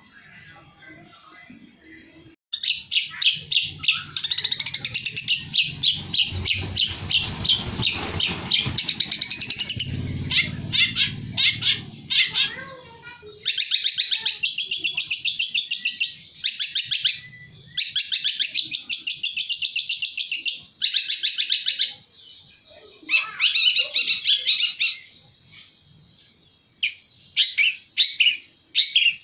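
Long-tailed shrike (cendet) singing its fast chattering song of rapid, high repeated notes. It sings in several long runs separated by short pauses, with a low rumble underneath the first run.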